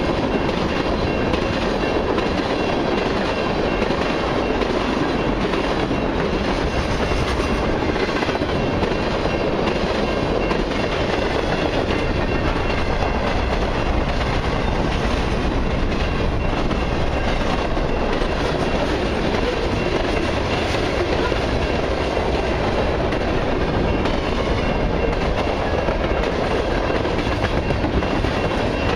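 Freight cars of a long mixed freight and autorack train rolling steadily past on the rails: a continuous rumble and clatter of wheels on track.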